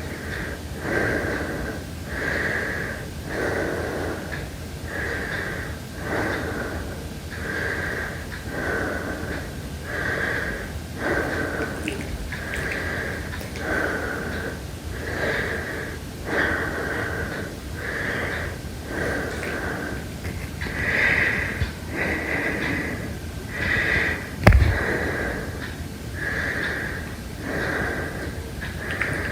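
Heavy breathing, in and out at a steady rhythm of roughly one breath every second and a half. A single sharp knock sounds about twenty-four seconds in.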